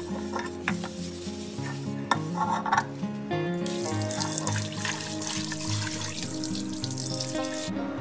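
A pressure cooker is scrubbed by hand in a sink, with short clinks and knocks against the pot. About three and a half seconds in, the tap runs into it to rinse it, a steady splashing that stops abruptly just before the end. Background music plays underneath.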